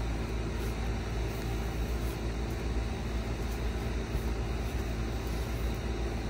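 Steady low rumbling noise with a hiss above it and no distinct events.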